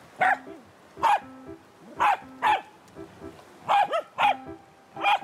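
Welsh corgi barking repeatedly: about seven sharp, loud barks, roughly one a second.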